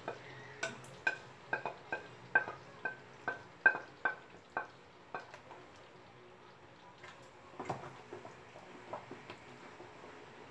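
Wooden spatula stirring grated cheese into a creamy sauce in a pan, knocking against the pan about twice a second with a brief ringing on each knock. About halfway through the knocks stop and the stirring goes on more softly, with only a few faint clicks.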